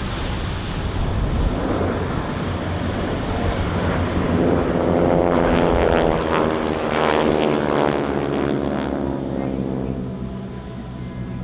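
Propeller aircraft flying past: a steady engine drone whose tone swells to its loudest about halfway through as the aircraft passes, then fades toward the end.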